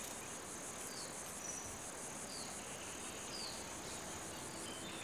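Steady insect chorus with a high, pulsing trill, and a few faint, short falling chirps scattered through it.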